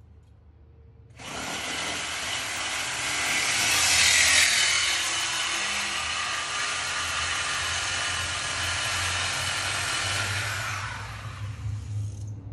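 Hand-held power cutting tool cutting through the car's exhaust pipe, starting abruptly about a second in, loudest around four seconds in, then steady and fading out near the end: the mufflers being cut out for a muffler delete.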